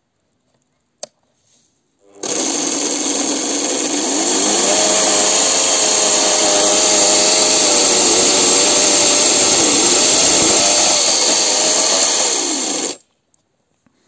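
A click, then a washing-machine motor driving a chainsaw chain starts about two seconds in, its whine climbing as it comes up to speed. It runs steadily, dipping briefly in pitch near the end while a branch is held to the bar, and winds down and cuts off abruptly about a second before the end.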